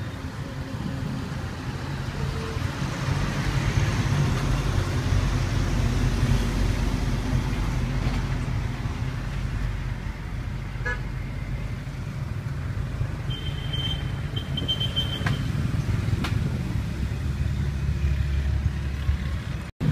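Street traffic: a steady low rumble of passing motor vehicles, with a short high beeping tone, broken into a few pieces, about thirteen seconds in.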